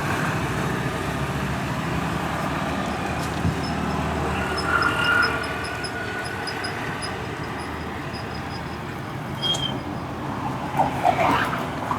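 Steady street traffic noise from passing vehicles, with a faint, fast, high ticking in the middle stretch and a few brief sharper sounds near the end.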